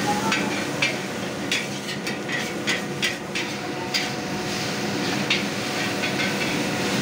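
Metal ladles clanking and scraping against a large wok as noodles are stir-fried and tossed, in irregular strikes about one or two a second over a steady hiss.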